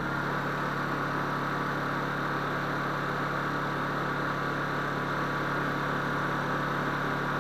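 Honda portable generator's engine running steadily on propane fed through a vacuum demand regulator, holding an even speed with a steady hum.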